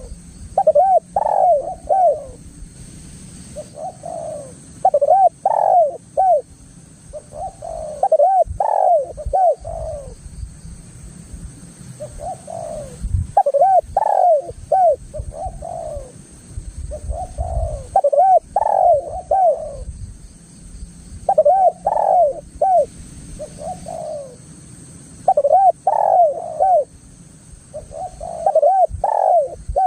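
Spotted dove (tekukur) cooing in its repeated phrased call, a run of several arched coos about every three to four seconds, strong and steady throughout; a steady high hiss runs underneath.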